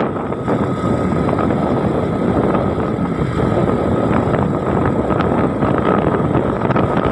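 A moving vehicle's engine running at a steady road speed, with wind buffeting the microphone and a faint steady whine.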